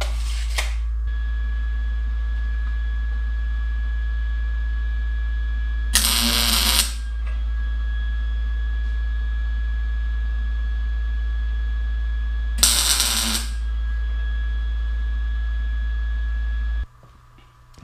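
Two short electric welding arcs, tack welds on steel tubing, each crackling for under a second, the second about six and a half seconds after the first. A steady low electrical hum runs beneath them.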